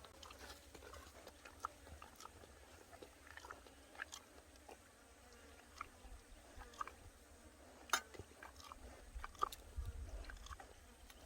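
Chewing on grilled sea bass: quiet eating sounds made of scattered sharp clicks and crunches, the loudest about eight seconds in.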